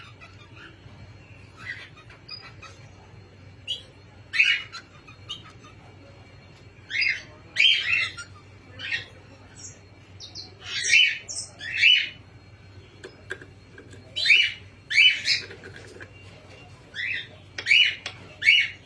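Pet cockatiels giving short, high-pitched calls, about a dozen scattered irregularly, some in quick pairs.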